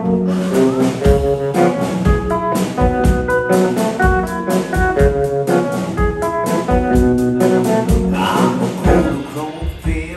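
A live blues band playing an instrumental passage with a steady beat.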